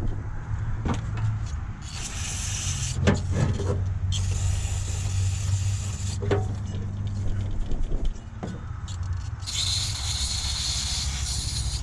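Aerosol brake cleaner sprayed in three short hissing bursts onto the glow plugs and their connections, over a steady low hum, with a few light knocks in between.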